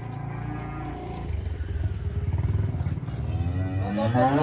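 A cow mooing: one rising, drawn-out low that starts about three seconds in and is the loudest sound, over a steady low mechanical hum.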